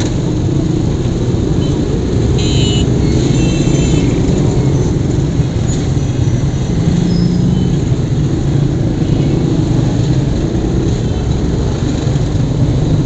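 Motorcycle engines running at low revs in slow, congested street traffic, a steady low hum close by. A brief high-pitched squeal comes about two and a half seconds in.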